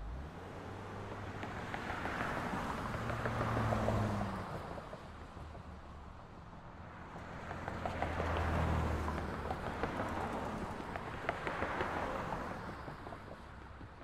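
Street traffic: vehicles passing one after another, each swelling in tyre noise and engine hum and then fading. The passes peak about four seconds in, about eight and a half seconds in, and again near twelve seconds.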